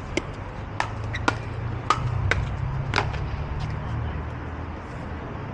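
Pickleball paddles striking a hard plastic ball in a quick rally: six sharp pops about half a second apart, stopping about three seconds in, over a steady low rumble.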